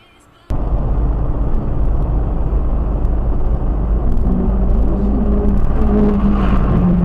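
Road and engine noise inside a moving car, recorded by its dashcam, cutting in abruptly about half a second in, heavy in the low end. From about four seconds an engine note rises and falls over the noise.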